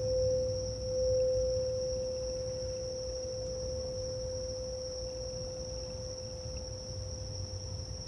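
A frosted quartz crystal singing bowl's single tone ringing out, wavering slightly at first and slowly fading. Under it runs a steady high trill of crickets and a low rumble.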